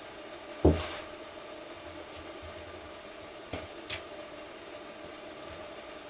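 One loud metallic clunk about half a second in, then two lighter clicks a few seconds later, over a faint steady hum: metal engine parts and tools being handled while the motorcycle clutch is reassembled.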